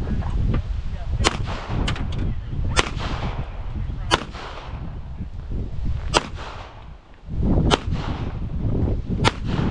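Single pistol shots fired slowly, one at a time, about seven of them roughly a second or two apart, over a heavy wind rumble on the microphone.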